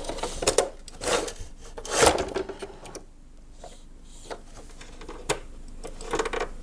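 Plastic scraping and rubbing with irregular clicks and knocks as the brew unit of a Saeco Vienna coffee machine is slid into place and handled. The loudest scrapes come about one and two seconds in, followed by sparser light clicks.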